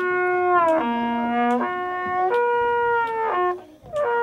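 Trumpet playing a slow lip-slur exercise, sliding between three natural harmonics (roughly low B-flat, F and upper B-flat) in held notes, with a short breath break about three and a half seconds in.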